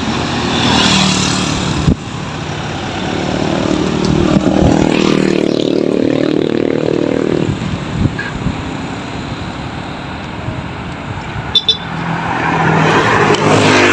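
Road traffic passing close by: vehicle engines and tyres swell and fade. One vehicle goes past about five to seven seconds in with its engine note dropping, and another approaches near the end.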